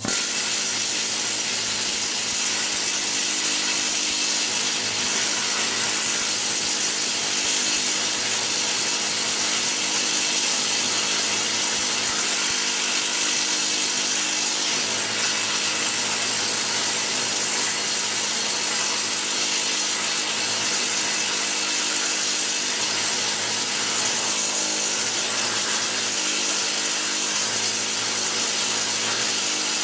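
Pneumatic planishing hammer running continuously, its dies rapidly hammering a small sheet-steel pod to stretch and shape it. It starts abruptly and keeps a steady, dense, loud rattle.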